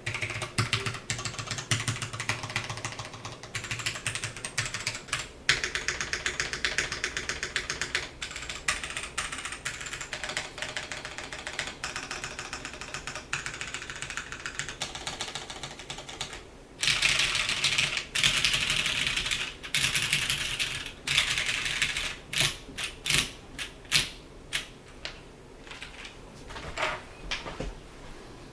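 Custom mechanical keyboard in a Gon Nerd Crystal case, with oiled vintage Cherry MX Clear tactile switches and GMK doubleshot keycaps, being typed on: a steady run of rapid keystrokes, a brief pause past the middle, a stretch of very fast typing, then slower separate key presses near the end.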